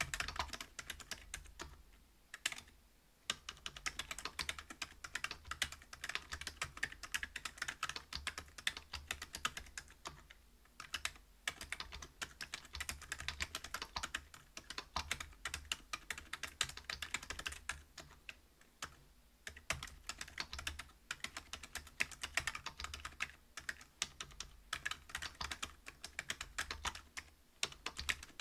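Continuous typing on a Whale 75 mechanical keyboard with stock Gazzew Bobagum silent linear switches (62 g) in a brass plate, under Geekark PBT keycaps: a rapid, soft clacking of keystrokes with brief pauses about three, ten and nineteen seconds in. A steady low hum sits underneath.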